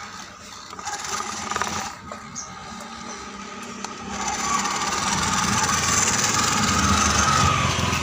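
Small electric motor and gearbox of a homemade RC truck whirring as it crawls over a dirt mound. A motor scooter's engine joins about halfway through, growing louder as it approaches.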